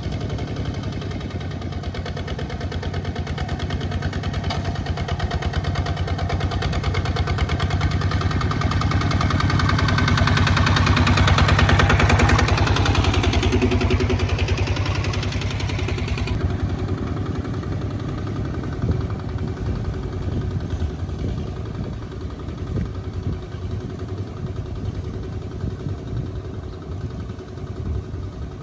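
Small diesel engine of a loaded two-wheel tractor chugging with a fast, even knock. It gets louder as the tractor passes close, about halfway through, then fainter as it pulls away.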